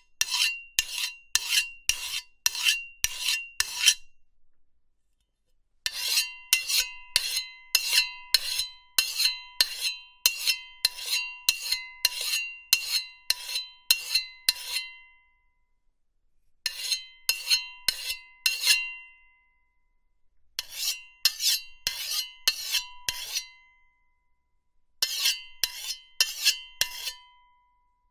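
Knife blade being sharpened: quick repeated scraping strokes, about two a second, each leaving a short metallic ring. The strokes come in five runs with short pauses between them.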